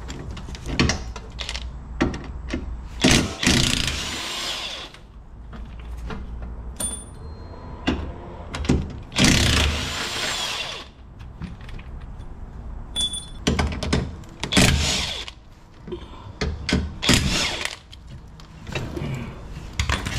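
A power tool run in four short bursts of one to two seconds each, driving sockets on bolts, with clicks and metal clanks of tools and sockets in between.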